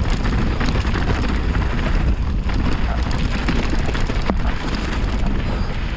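Mountain bike running fast down a rocky, loose gravel trail: tyres crunching and rattling over stones and the bike clattering, over a steady low rumble. There is a sharp knock about four seconds in.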